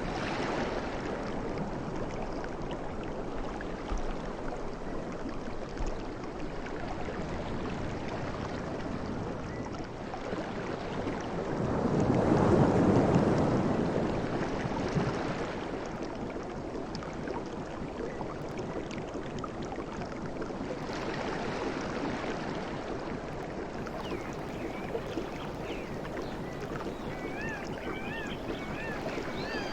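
Sea waves breaking and washing up the shore in a continuous rushing hiss that swells and fades, with the biggest wave surging about halfway through.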